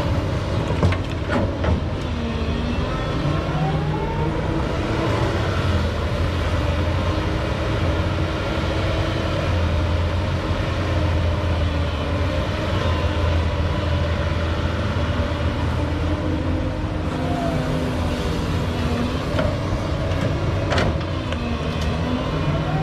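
Doosan excavator's diesel engine running steadily under load, its pitch rising and falling several times as the hydraulics work. A few sharp knocks come near the start and again near the end.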